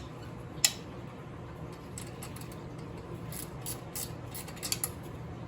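Light, irregular metal clicks and taps of a hand tool working an 8mm bolt on a dirt bike's rear brake master cylinder cover, with one sharper click about half a second in and a run of small clicks in the second half.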